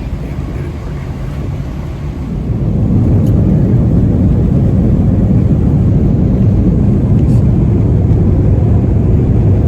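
Airbus A320-200's jet engines spooling up to takeoff thrust, heard from inside the passenger cabin: a low engine rumble swells about two and a half seconds in and then holds as loud, steady engine noise.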